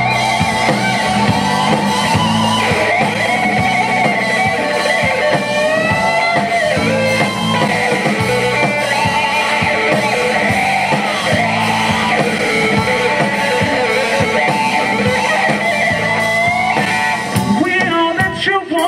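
Live rock band playing an instrumental passage: an electric guitar lead line with sliding, bent notes over bass, drums and percussion. The texture changes near the end.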